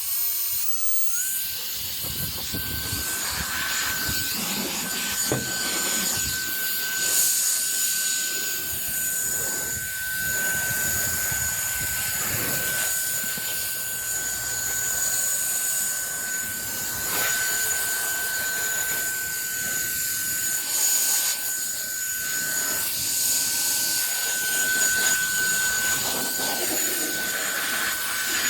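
Cordless electric air duster running: a high-pitched motor whine over a steady rush of blown air. The whine steps up in pitch about a second in, then holds steady.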